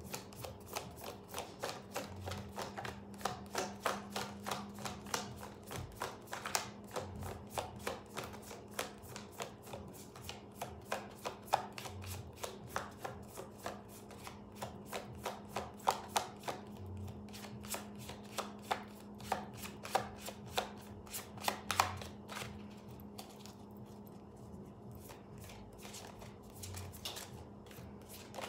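A tarot deck being hand-shuffled: cards slapping and flicking against one another in an overhand shuffle, a quick run of soft clicks, about three a second, thinning out over the last few seconds.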